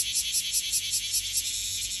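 A large clear-winged cicada singing close by: a loud, high rasping buzz pulsing about seven times a second, which merges into one steady buzz near the end.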